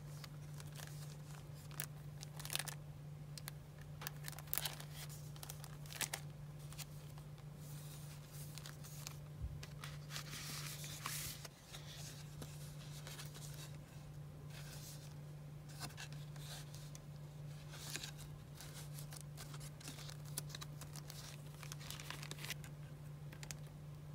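Paper craft pieces and a clear plastic sleeve being handled: scattered crinkling and rustling with small clicks, and a longer rustle about ten seconds in, over a steady low hum.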